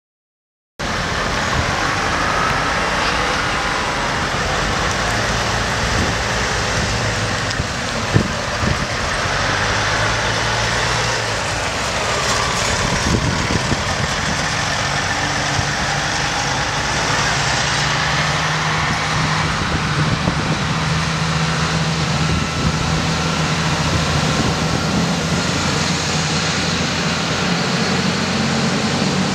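Heavy military diesel trucks driving past one after another in a convoy, a loud steady engine rumble whose pitch shifts as each truck goes by. The sound starts suddenly about a second in.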